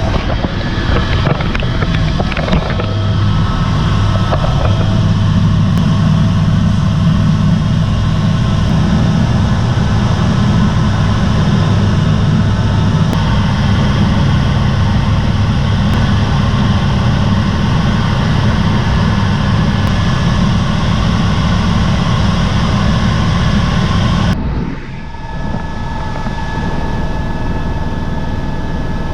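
Helicopter engine and rotor heard from inside the cabin: a loud, steady, deep drone. About 24 seconds in, the sound changes abruptly and the higher frequencies drop away.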